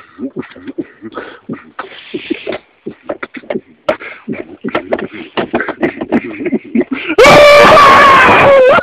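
Choppy vocal noises and clicks close to a handheld microphone. About seven seconds in, a man lets out a long, very loud wail that distorts the microphone, held on one pitch and dropping at the end.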